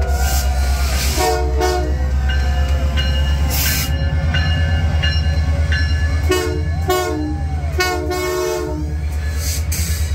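Diesel locomotive of the Canadian Pacific Holiday Train rolling past close by, its engine a deep pulsing rumble. The horn sounds in clusters of short toots, once about a second in and twice more between about six and nine seconds in.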